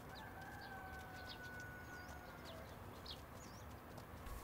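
Faint outdoor ambience: small birds chirping in short high notes, with one long drawn-out rooster crow through the first half.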